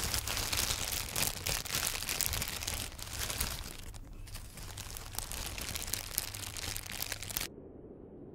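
Plastic film, like cellophane, crinkling and crackling densely, with two short dips about three and four seconds in, then cutting off suddenly near the end.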